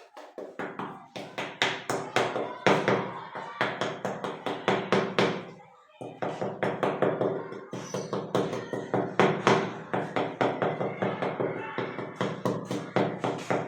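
A floor drain grate being tapped down into fresh mortar to bed it: quick, repeated sharp taps, several a second, in two long runs with a short pause about six seconds in.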